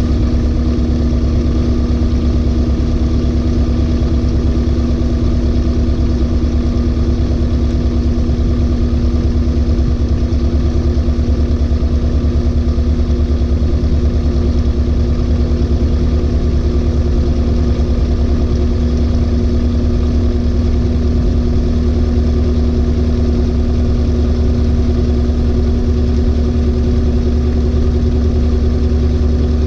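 LG 18 kg washing machine in its final spin with the drum full of clothes, running at a steady speed with a constant hum and a low rumble.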